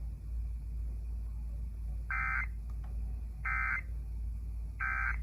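Emergency Alert System end-of-message signal: three short bursts of buzzy digital data tones, about a second and a half apart, marking the end of the tornado warning broadcast, over a low steady hum.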